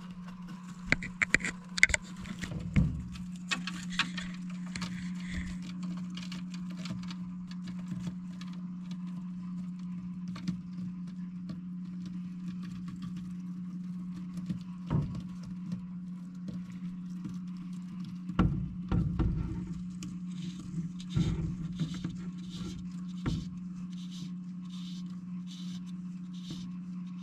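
A steady low hum with scattered light taps and rustles, and a few louder knocks about two seconds in and again about two-thirds of the way through.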